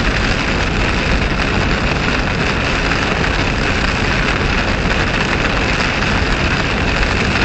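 Steady road noise heard inside a car driving at about 58 mph through heavy rain: tyres hissing over the flooded road, with rain hitting the windshield.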